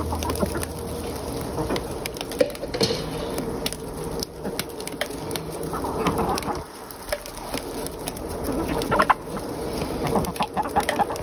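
A small flock of backyard chickens clucking softly as they feed on scattered treats, with short sharp clicks throughout and a louder flurry of clucks about six seconds in and again near nine seconds.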